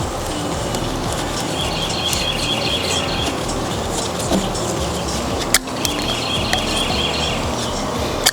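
A bird singing twice, each time a quick trill of high repeated notes lasting a second or two, over steady outdoor background noise. A single sharp click sounds about halfway through.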